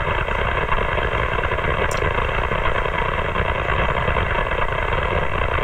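AM-demodulated CB channel 6 from a software-defined radio receiver: a station keyed up without speaking, heard as a loud, steady rush of harsh static with a few faint steady tones in it.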